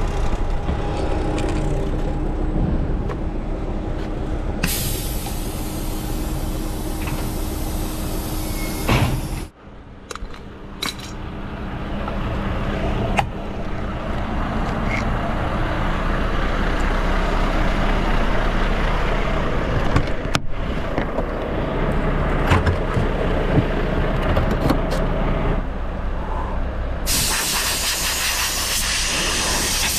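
A steady low machine hum with a long hiss of air lasting about five seconds, a few clicks, and, near the end, the strong hiss of a compressed-air blow gun being fired.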